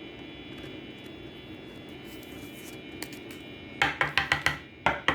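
Steady low background hum, then from almost four seconds in a quick run of sharp, ringing clicks, about five in under a second, a short pause, and more clicks near the end.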